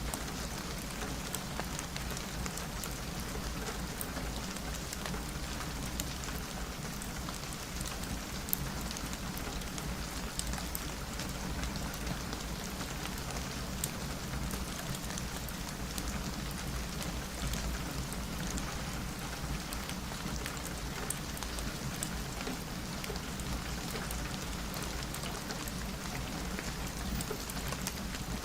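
Steady rain falling on a window, an even hiss with scattered sharp drop ticks through it.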